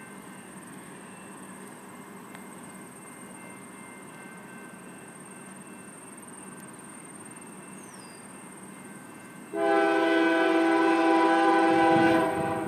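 A locomotive air horn sounds once near the end, a loud chord of several steady tones that starts suddenly and lasts about two and a half seconds. Before it there is only a faint steady background.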